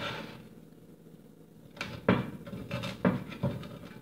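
Knife sawing through a hard-baked pizza crust, crunching and knocking against the board beneath in a run of short strokes through the second half.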